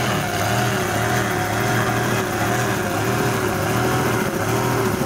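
Performance powerboat engine running hard at speed, a steady drone whose pitch wavers slightly, over a steady hiss.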